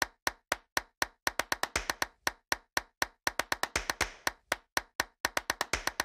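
A rhythmic run of short, sharp percussive hits, like claps or clicks, in an edit-beat pattern. They start at about four a second, then come in quicker bunched runs, with silence between hits.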